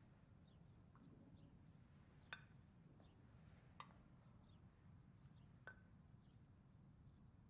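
Near silence: a low steady room hum with three faint sharp clinks, spaced a second and a half to two seconds apart, and faint scattered high chirps like distant birds.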